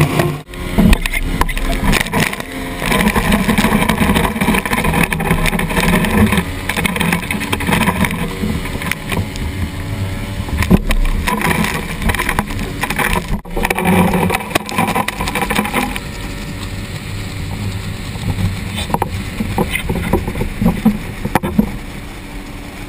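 Outboard-powered flat-bottom boat running, with a steady low engine hum under loud rushing and splashing water at the waterline. About two-thirds of the way through it gets quieter as the boat comes off speed and the spray dies down.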